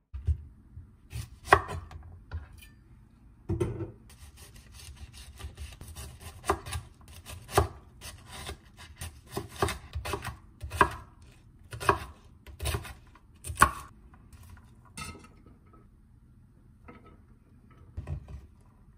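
Chef's knife dicing an onion on a wooden cutting board: irregular sharp knocks of the blade striking the board, roughly one a second, growing sparse and fainter near the end.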